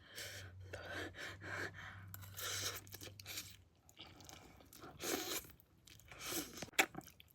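Close-miked chewing of Buldak spicy instant noodles, irregular wet mouth sounds, with a sharp click near the end.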